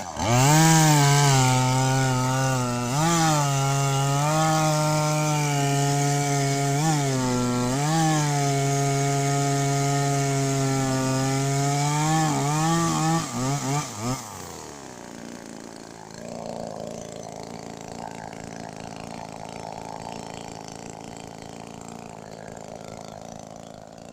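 Zomax ZM2000 mini two-stroke petrol chainsaw running at high revs while cutting wood, its pitch dipping briefly several times as the chain bites. About fourteen seconds in it drops back to a quiet idle.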